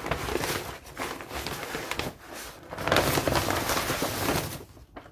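Packing paper rustling and crumpling as it is handled and pulled out of a cardboard box, in uneven surges that are loudest about three seconds in and die down near the end.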